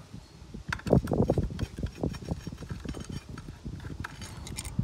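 A screwdriver working the screw of the metal battery hold-down strap in a plastic scooter deck: a quick run of knocks, scrapes and rattles, loudest about a second in, then thinning out.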